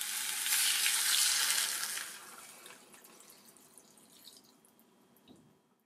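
Water pouring into a stainless steel saucepan over raw chicken wing drumettes. It is loudest in the first two seconds, then trails off.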